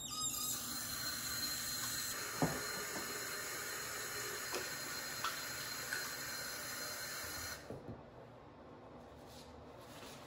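Bathroom sink faucet turned on, water running steadily into the basin while hands are rubbed under it, then shut off about three-quarters of the way through, leaving quiet room tone.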